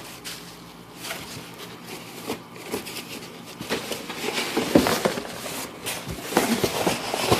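Bubble wrap crinkling and rustling as it is handled and unwrapped by hand: irregular crackles, with louder handling noises about five seconds in and again at the end.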